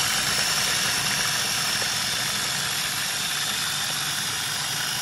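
Cuisinart Mini-Prep food processor motor running steadily on its grind setting, blending a thick Caesar dressing, with a steady high whine.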